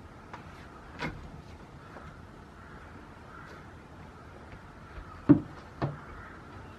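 A goat's hooves knocking on a hard plastic tub and boards: a light knock about a second in, then two louder thumps about half a second apart near the end as the goat steps up onto the tub.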